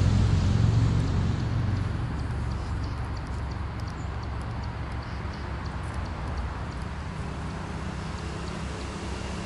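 Low rumble of a road vehicle passing, loudest at the start and fading over about two seconds into a steady low hum. Faint high ticks sound over it.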